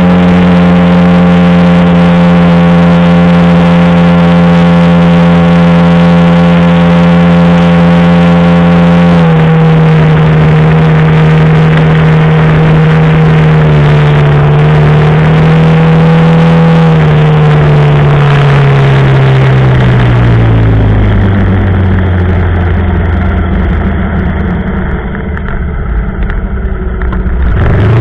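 Quad bike (ATV) engine heard up close, running at a steady high engine speed. About nine seconds in the pitch steps down slightly and wavers. Over the last third it falls away to a low idle-like pitch as the quad slows, then revs up again at the very end.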